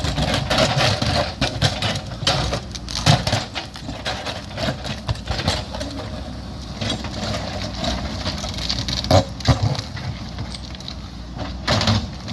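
JCB backhoe loader's diesel engine running steadily under load, with repeated knocks and scrapes of the bucket working into rock, the loudest clanks about 3, 9 and 12 seconds in.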